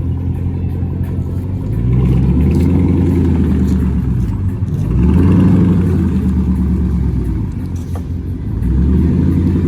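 Car engine running and revved up three times, each rev swelling and easing back over a couple of seconds.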